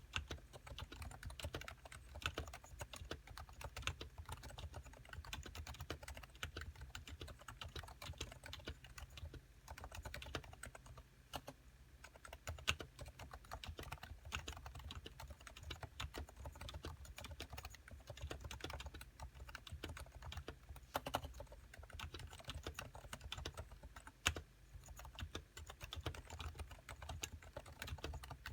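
Continuous fast typing on a Topre Realforce 87USW tenkeyless keyboard with 45 g silenced Type-S electro-capacitive switches: soft, muted keystrokes with a low thock, a few louder strokes standing out, likely the spacebar or other larger keys.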